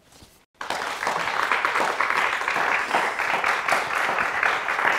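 Applause from many hands, cutting in abruptly about half a second in after a brief near-silent gap and then running on steadily.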